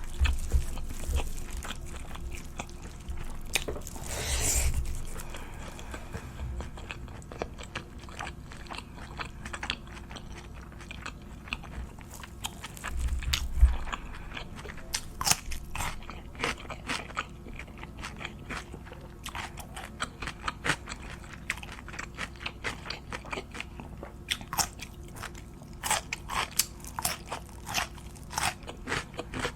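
Close-miked eating: crunchy bites and chewing, full of sharp crisp crackles, with a low thump about thirteen seconds in.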